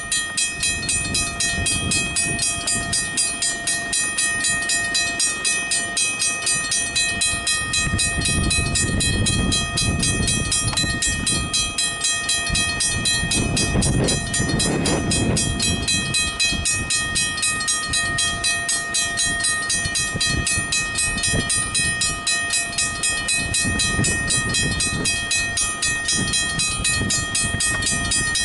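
Griswold mechanical level-crossing bells ringing continuously in rapid, even strokes: the crossing has activated to warn of an approaching train.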